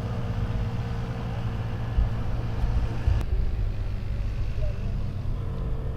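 A steady, low engine hum, with a single sharp click about three seconds in.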